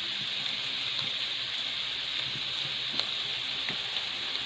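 Sliced banana blossom sizzling in a pan, a steady hiss with a few faint small clicks.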